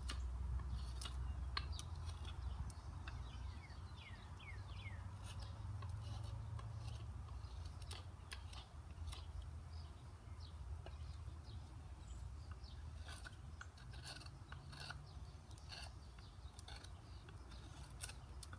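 Hand-forged knife blade scraping and shaving the bark off a dry ash branch in short, irregular strokes, over a low steady rumble.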